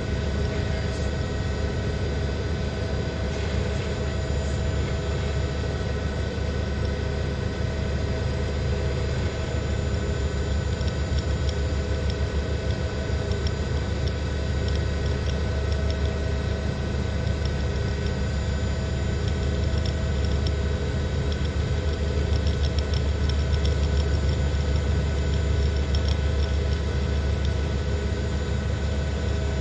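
Steady whine and drone of a news helicopter's turbine engine and rotor, with a heavy low rumble and several steady tones throughout.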